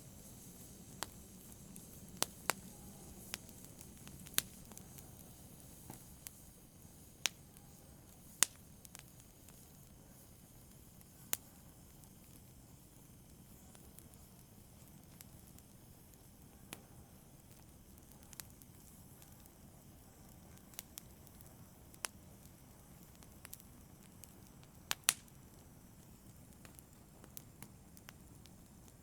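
Wood fire in a fireplace crackling: irregular sharp pops, one every second or two, over a soft low rush of burning.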